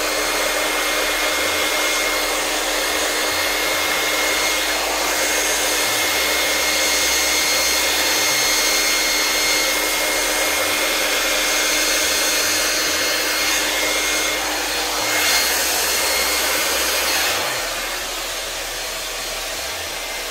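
Handheld hot-air blower running steadily, its motor whining over a loud, even rush of air as it blows wet acrylic pour paint outward into a bloom. The airflow eases slightly near the end.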